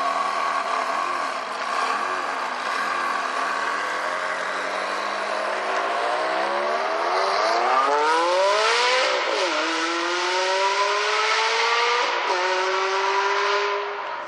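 Ferrari supercar engine accelerating hard: the pitch climbs steeply, then drops abruptly twice, about three and a half and six seconds after the climb begins, as it shifts up and pulls through the next gears.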